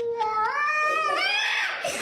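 A cat yowling: one long drawn-out call that climbs in pitch and is highest near the end.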